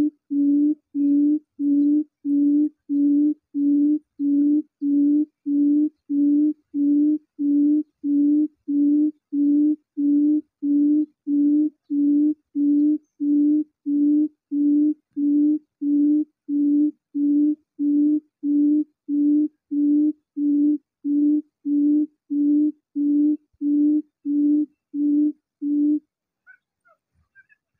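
Recorded buttonquail call played on a loop through a Bluetooth speaker as a snare lure: a low hoot repeated about three times every two seconds, each one identical. It cuts off abruptly near the end.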